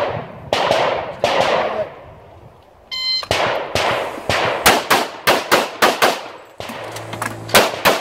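A shot timer beeps about three seconds in, and then a pistol fires a rapid string of shots, many in quick pairs, with a short pause about seven seconds in before the shooting resumes.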